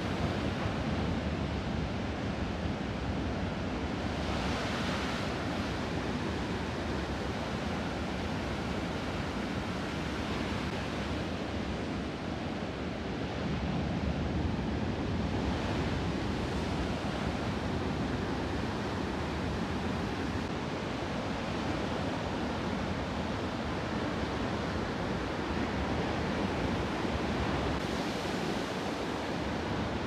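Ocean surf: a steady rushing of waves breaking and washing in, with a louder hiss of a breaking wave swelling up three times, roughly ten seconds apart.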